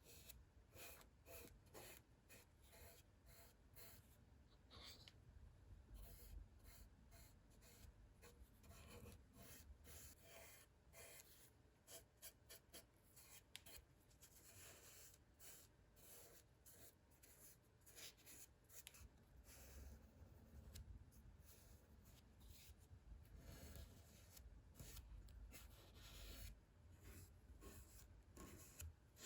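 Faint, irregular scratching and rubbing strokes, like hand work on a rusty saw.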